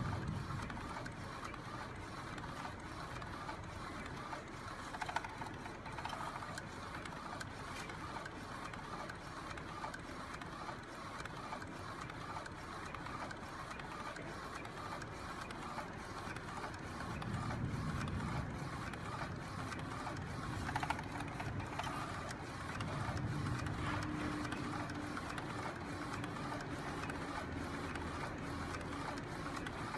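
Flatbed inkjet food printer running, its printhead carriage shuttling back and forth with a steady, evenly repeating mechanical whir. A deeper rumble swells twice in the second half, and there are a couple of sharp clicks.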